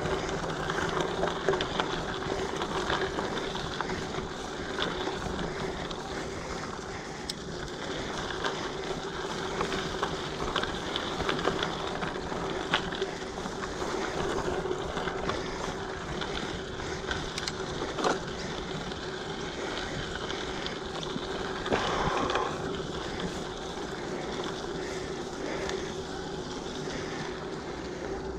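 Giant Fathom mountain bike rolling over a gravel path: tyres crunching on the loose surface, with a steady hum and occasional clicks and rattles from the bike, and one sharper knock about two-thirds of the way through.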